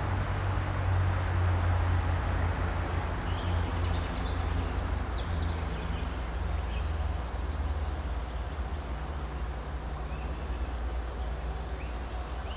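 Small birds chirping in short, scattered calls over a steady low hum.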